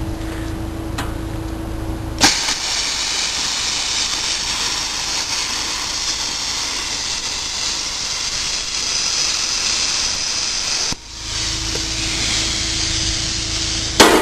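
Plasma cutter torch cutting aluminium tread plate. A steady hum with a low tone gives way about two seconds in to a sudden, loud, even hiss as the arc cuts. The hiss breaks off briefly about eleven seconds in, resumes, and ends with a sharp knock.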